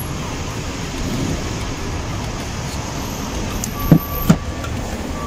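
Steady background rumble like street traffic. About four seconds in there are two sharp knocks close together, with a short high beep.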